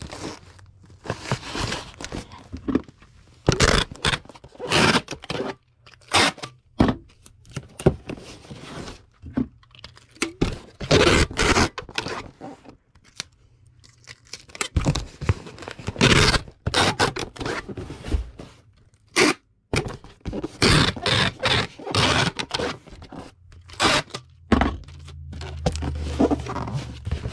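A cardboard shipping box filled with packing peanuts being handled and packed: irregular bursts of rustling and scraping, stopping and starting every second or two. A low steady hum comes in near the end.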